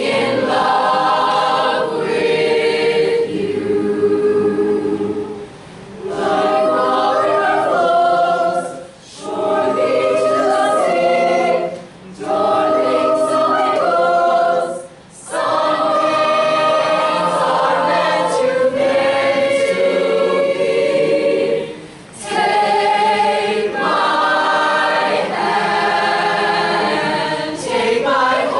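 Mixed youth choir singing unaccompanied, in full harmony, in phrases several seconds long with short breaks for breath between them.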